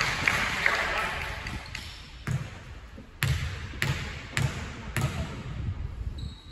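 A basketball bounced five times on a wooden gym floor, about once every half second to second: a player's dribbles at the free-throw line before the shot. A fading hum of voices from the hall comes before the bounces.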